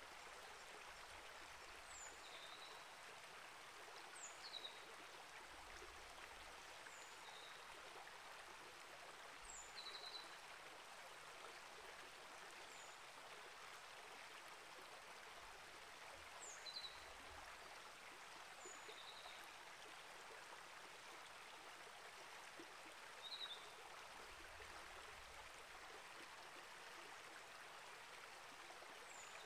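Faint, steady flow of a small rainforest creek over rocks. Short high chirps of a bird sound about every two seconds over the water.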